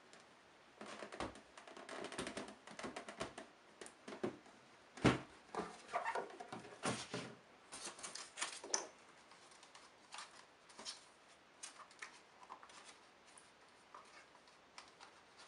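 Cardboard packaging of a camera box being handled as the box is opened: a run of scrapes, taps and rustles, busiest in the first half, with one sharper knock about five seconds in, then sparser handling noises.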